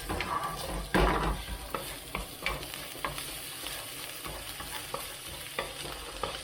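Spoonful of ground spice paste frying in hot oil in a pan, sizzling steadily while a utensil stirs it, with repeated scraping clicks against the pan and a louder knock about a second in.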